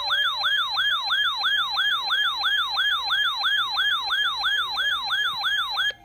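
Siren on a fast yelp: rapid, even rise-and-fall sweeps about three and a half times a second, with a fainter tone underneath that slowly rises in pitch and then holds steady. It cuts off suddenly near the end.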